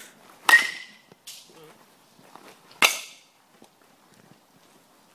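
Two sharp cracks of a bat striking baseballs in batting practice, about two seconds apart, the first with a short ringing tone.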